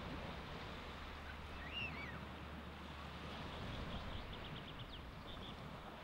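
Baltic Sea surf washing steadily on the beach. A bird gives a short call about two seconds in, and a quick run of high chirps follows a little later.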